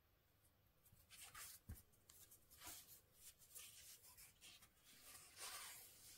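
Faint rustling and scraping of things being handled, in several short bursts, with one soft thump just under two seconds in.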